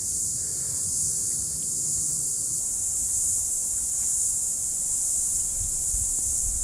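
Steady, high-pitched droning of insects, constant throughout.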